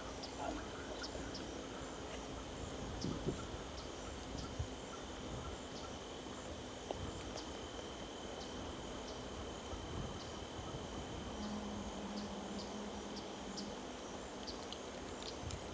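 Insects chirping outdoors: a steady high trill with short, high chirps repeating about every half second, over faint rustling and a few small knocks.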